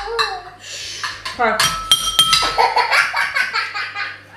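Cutlery clinking and scraping on dinner plates, with one ringing metal clink about two seconds in. A child's voice and laughter run through it.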